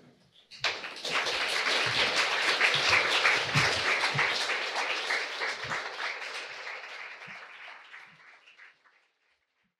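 An audience applauding. The clapping starts about a second in and dies away near the end.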